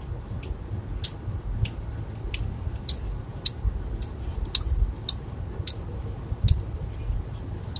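Crunchy Taco Bell Diablo tortilla chips being chewed: crisp crunches about twice a second, over a steady low rumble from inside the car.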